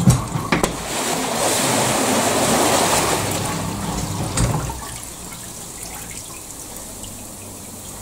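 Floodwater gushing in under the bottom edge of a sectional garage door as its flood seal is released and the door lifts, loud for about four and a half seconds and then settling to a quieter steady flow. A couple of knocks near the start as the door shifts.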